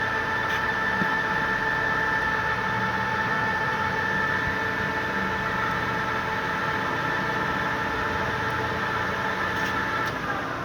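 LeBlond Makino 15" x 50" engine lathe running under power, its geared headstock giving a steady whine of several tones over a mechanical hum.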